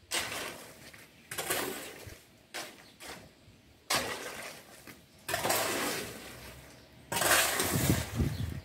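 Steel shovel scraping through and turning wet concrete mix on a tiled floor: about seven rough, uneven strokes, one every second or so.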